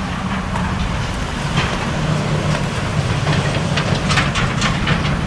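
A truck and trailer passing on a road: a steady low engine drone with tyre noise, and a quick run of rattling clicks about four seconds in.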